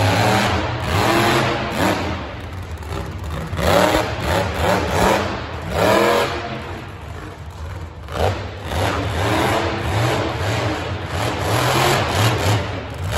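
Monster truck engine revving hard, over and over, with strong rising runs about four and six seconds in as the truck climbs onto crushed cars.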